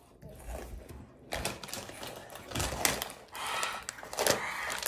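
Crunchy Takis rolled tortilla chips being eaten and their foil bag handled: an irregular run of quick crackling clicks.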